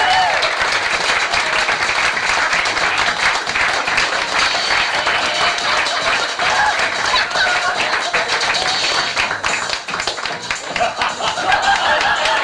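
Audience clapping steadily for a performer's entrance, with shouts and voices from the crowd.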